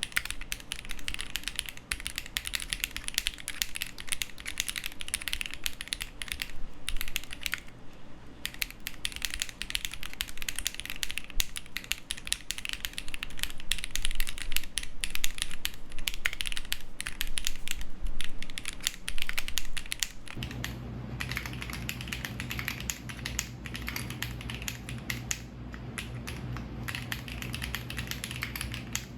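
Continuous typing on a Ginkgo65 custom mechanical keyboard with Lotus switches and GMK Mudbeam keycaps: a dense, uneven run of keystroke clacks. About two-thirds of the way through, a steady low hum comes in beneath the typing.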